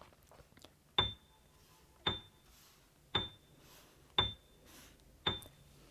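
Five sharp, evenly spaced ticks about a second apart, each with a brief high clear ring, like a countdown-timer sound effect marking the pause for a child to read the word aloud.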